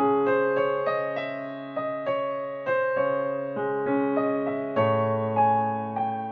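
Instrumental gospel music on a piano-type keyboard: melody notes struck one after another and fading, over held chords. A deeper bass chord comes in about five seconds in.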